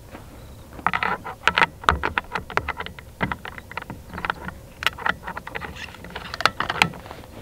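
Irregular run of sharp metallic clicks and knocks from hands working a scoped hunting rifle's action, starting about a second in and stopping shortly before the end.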